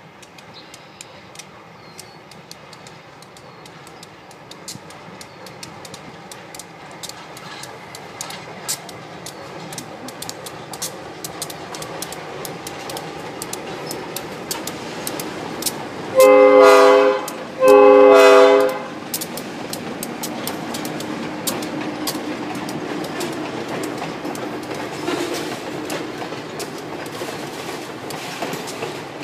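Diesel locomotive hauling a short train past at low speed, its engine and wheels growing steadily louder as it approaches. About halfway through the locomotive sounds its air horn, two blasts of about a second each, and the wheels keep clicking over the rail joints as the cars go by.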